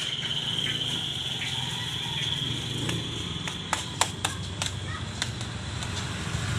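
A small engine idling steadily under a steady high-pitched whine, with plastic bags crinkling and a few sharp clicks between three and five seconds in as food is bagged.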